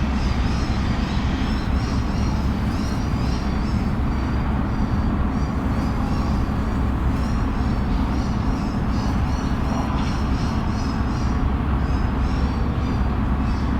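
City ambience: a steady rumble of traffic, with many short high chirps repeating throughout.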